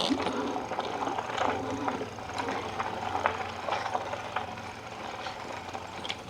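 Electric bike rolling slowly along a dirt road: scattered crunches and clicks from the tyres and bike over a steady low hum.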